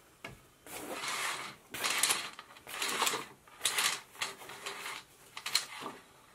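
Curtain being pulled open along its rail in about six short tugs, the runners sliding and rasping on the track.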